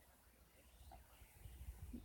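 Near silence: faint low rumble of room tone.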